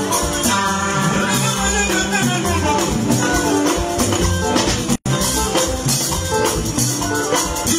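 Live highlife band music: an electric guitar playing a melodic lead line over a steady bass and shaker-and-tambourine percussion. The sound drops out for an instant about five seconds in.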